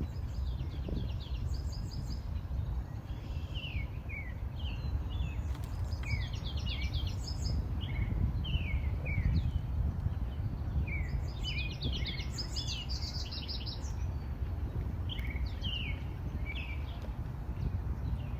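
Songbirds chirping and singing: short falling notes and quick clusters of rapid high notes every few seconds, over a steady low rumble of background noise.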